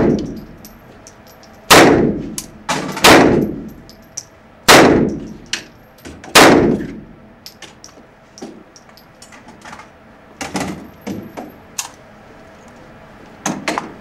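Five single gunshots from a compact submachine gun, fired one at a time about a second and a half apart, each ringing on in the echo of an indoor range. After them come only lighter metallic knocks and clanks.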